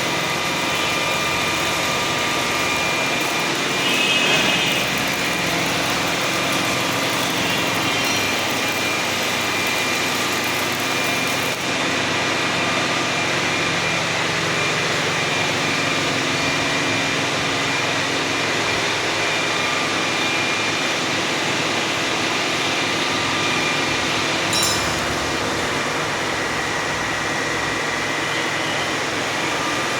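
WMW Union BFK 110 CNC horizontal boring machine running: a steady machine hum with a thin high whine held at constant pitch, and a brief louder clatter about four seconds in and again near 25 seconds.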